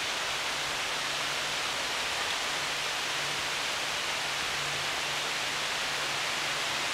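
Heavy rain pouring down on woodland leaves, a steady, even hiss.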